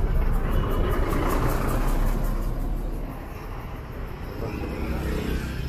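Street traffic: a motor vehicle passing close by, loud for the first two seconds or so, then fading to a lower traffic hum.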